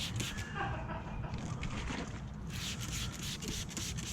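Window tint film being handled on a work surface: a run of quick, scratchy rubbing and scraping strokes over a low steady rumble.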